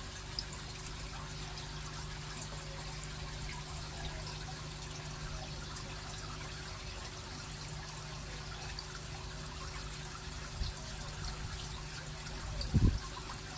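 Water pouring from a pipe into a shallow tub of water, a steady splashing trickle, over a steady low hum. A couple of brief louder sounds come near the end.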